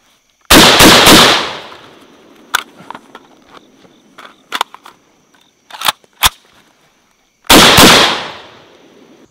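Two short bursts of rifle fire about seven seconds apart, each a few shots in quick succession that ring out for about a second, very loud. A few faint sharp clicks fall between the bursts.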